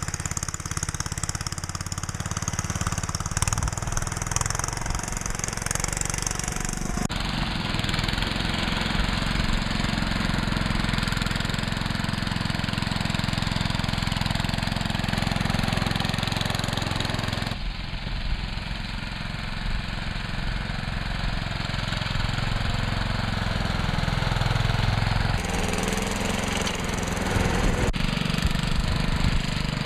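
Sears Suburban garden tractor's engine running steadily as the tractor pushes snow with a front plow blade. The sound changes abruptly three times where one clip cuts to the next.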